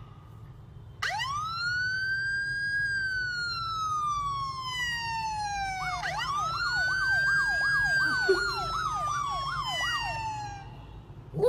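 Recorded police siren played through a phone's speaker: a long wail that rises about a second in and falls slowly, then a second wail from about six seconds with a fast yelp sweeping up and down two or three times a second, fading out near the end.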